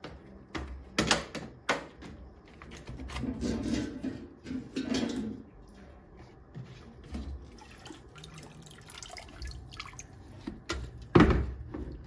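Handling noise from a Parkside wet/dry vacuum being opened: sharp plastic clicks and knocks as the head's red side clips are worked and the head is lifted off its wet stainless-steel tank, with some water dripping. One loud thump about eleven seconds in.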